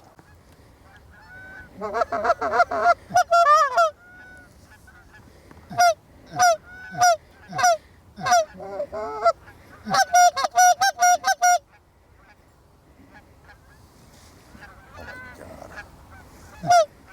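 Canada geese honking in a series of short, loud calls, single honks and quick runs, including a rapid string of honks about two-thirds through, followed by a lull of a few seconds before more honks near the end.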